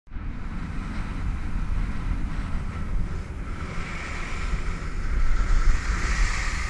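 Wind buffeting the microphone of a skier's body-worn camera during a downhill run, a steady low rumble. Over it comes the hiss of skis sliding on snow, which grows louder about four seconds in.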